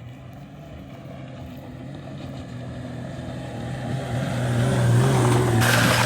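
A vehicle engine running steadily and growing louder, with a rush of noise near the end.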